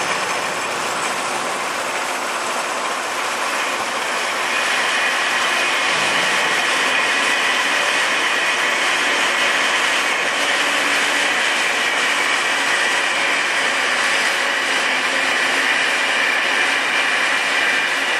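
1989 Amada HA250W hydraulic horizontal band saw running in its automatic cutting cycle, with a steady mechanical noise. About four seconds in it grows louder and takes on a high, steady ring.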